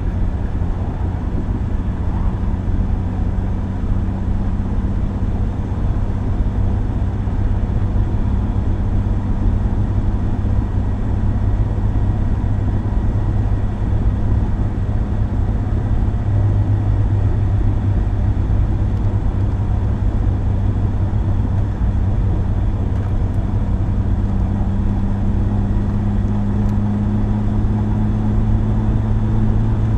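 Car engine and road noise heard while driving, a steady low drone with tyre and wind hiss; near the end the engine note rises slightly as the car speeds up.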